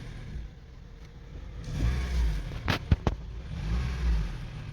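Honda CR-V four-cylinder engine idling, its low rumble swelling and easing about every two seconds as the idle speed moves a little up and down. A few sharp clicks sound close together a little past the middle.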